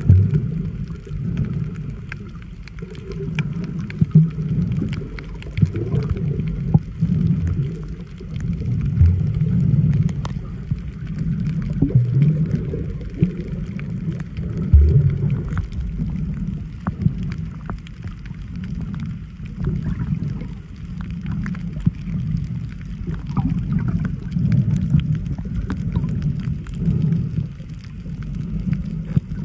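Muffled underwater sound picked up by a submerged camera: low sloshing water movement that swells and fades every two to three seconds, with scattered sharp clicks.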